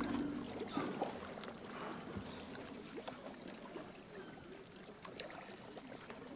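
Quiet water lapping and small splashes around a dolphin floating at the surface of a pool, with faint scattered clicks.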